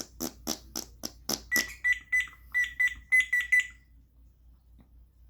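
African grey parrot mimicking a fart: a quick run of short raspy blasts, about four a second, then about eight short beeps at one steady pitch.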